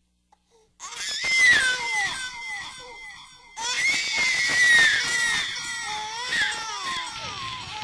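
High, wavering crying voice that starts about a second in, breaks off abruptly around the middle and starts again at once.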